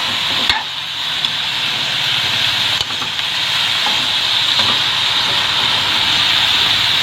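Squash and string beans sizzling in a hot pan with sautéed garlic, a steady loud hiss, while being stirred, with a few faint clicks of the utensil against the pan.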